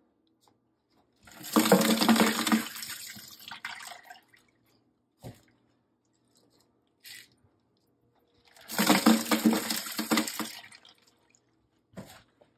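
Ice water splashing and pouring from an overfull ice-bath bowl packed with meat, in two bursts of about two to three seconds each, the first about a second in and the second about nine seconds in. A few faint knocks come between them.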